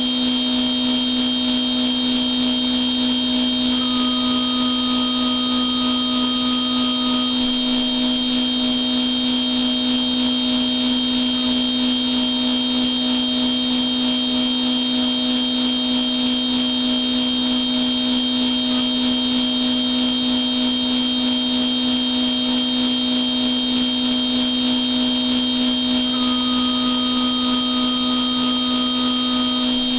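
CNC machine tool running through its machining program without cutting metal or coolant: a steady motor and spindle whine made of several constant tones. A thinner, higher tone joins it for about three seconds twice, about four seconds in and near the end.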